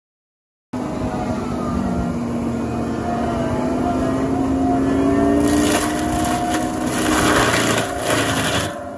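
Case TV620B compact track loader running hard with its Loftness Battle Ax forestry mulcher drum spinning, a steady whine over the engine, starting suddenly under a second in. From about five seconds in, the mulcher's chipper teeth bite into a big wooden stump, adding a harsh grinding and chipping noise.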